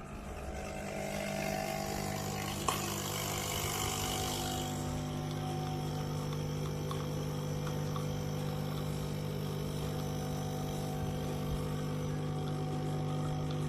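Nespresso Essenza Mini capsule coffee machine running its pump, a steady buzzing hum, with a hiss in the first few seconds and a single click about three seconds in.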